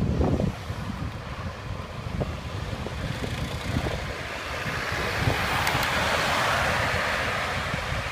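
Wind buffeting the microphone over the low rumble of a moving vehicle, with a broad hiss that swells and fades in the middle.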